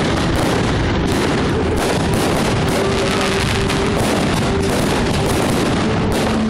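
Aerial fireworks bursting in rapid succession: a dense, unbroken barrage of bangs and crackles.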